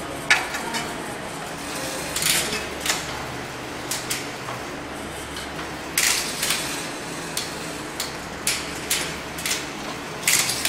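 About a dozen irregular, sharp metallic clicks and clatters as a tape measure and a derailleur hanger alignment tool are handled against a road bike's rear wheel, over a steady low background hum.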